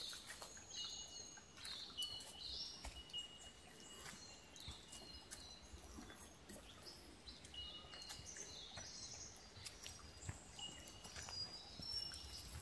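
Birds calling: a run of short high chirps and several held high whistles, each about a second long, over soft, scattered footstep clicks.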